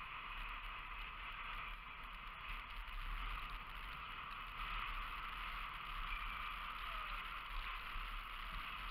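Steady wind and road noise from a camera riding along on a moving road bicycle: a low rumble of wind buffeting the microphone under a constant hiss of tyres on asphalt.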